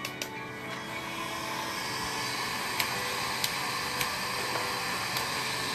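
A small electric motor running steadily with a rush of air, a little louder from about a second in, with a few light clicks.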